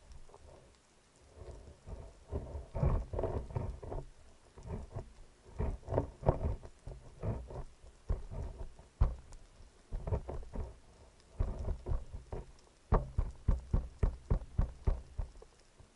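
Underwater handling and movement noise picked up by a speargun-mounted camera: irregular bursts of soft knocks and crackle, each lasting one to two seconds, with quieter gaps between them.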